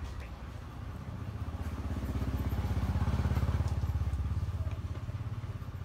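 Engine of a passing motor vehicle, a low pulsing hum that swells to its loudest about three seconds in and then fades.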